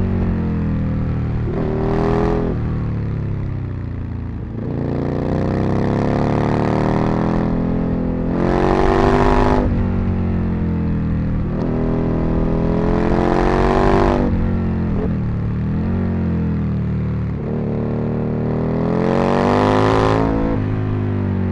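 Aprilia RSV Mille's 60-degree V-twin accelerating and easing off again and again, its pitch climbing to a peak and falling back four times, peaking about 2, 9, 14 and 20 seconds in.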